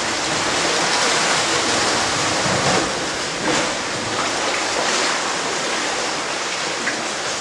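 Seawater washing and sloshing in a sea cave: a steady rushing noise with small swells in loudness.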